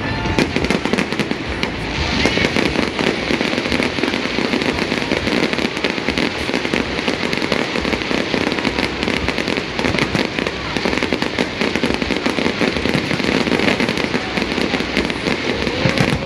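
Fireworks display going off: a dense, continuous run of bangs and crackles with no pause.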